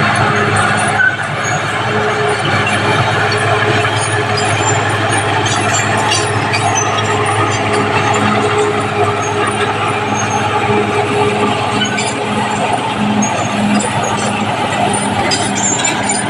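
Caterpillar D6R bulldozer's diesel engine running steadily under work, a constant loud hum over a broad mechanical noise, with light scattered clicks.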